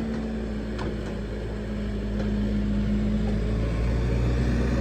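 The 95 horsepower turbo diesel of a Case 580 Super M Series 2 backhoe loader, running steadily. It grows slightly louder from about halfway through.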